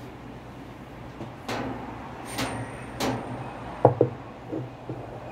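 Handling noises at the centre hub of a top-loading washer's wash basket: a few scrapes, then sharp knocks about four seconds in and again near the end.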